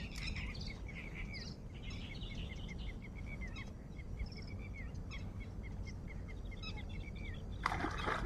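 Outdoor ambience of a steady low rumble, over which a bird repeats short chirps quickly, about four or five a second. A short rush of noise comes near the end.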